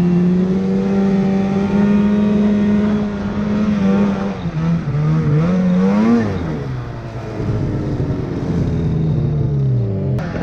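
Arctic Cat mountain snowmobile's two-stroke engine running at steady revs through powder, then wavering and swooping up and down in pitch as the throttle changes. It settles at lower revs and drops off near the end as the sled slows.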